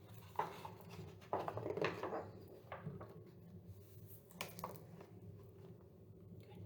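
Soft handling noises: a few light knocks and rustles, the busiest stretch between about one and two seconds in, over a low room hum.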